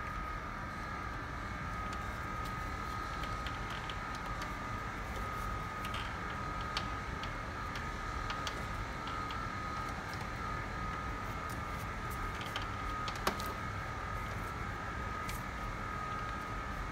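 Scattered light clicks and taps of hands and tools working on wiring connectors in a car's engine bay, over a steady high-pitched hum.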